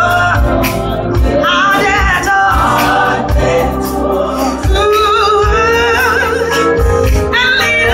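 Live gospel music through a PA: a lead singer's wavering, sliding vocal runs over a band with keyboard, bass and drums, and backing singers.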